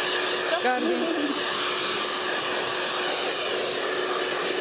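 Hand-held hair dryer running steadily while blow-drying long wet hair: an even rushing hiss with a steady hum under it.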